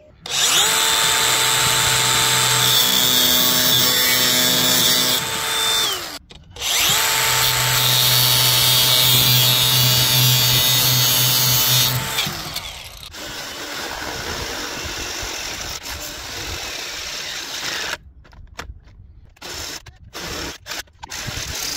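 Angle grinder cutting corrugated steel roofing in two long, steady passes with a short break about six seconds in. Near the end, a cordless drill runs in short on-off bursts.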